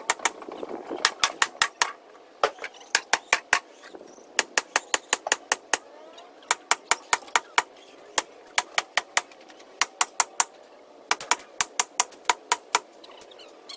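Runs of sharp hammer blows on the wooden frame of a raised garden bed, driving it down into the ground, several blows a second with short pauses between runs.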